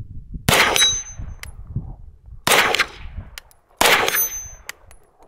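Three shots from a 9mm CZ Scorpion Evo 3 S1 pistol fitted with a Q Cherry Bomb muzzle device, spaced one to two seconds apart, each with a short echo. Shots are followed by a brief high metallic ring from the small steel gong target being hit.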